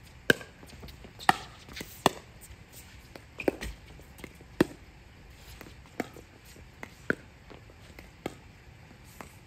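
A pickleball rally: the sharp pops of paddles hitting the hollow plastic ball, about one a second and unevenly spaced, with the loudest hits near the start and about a second in.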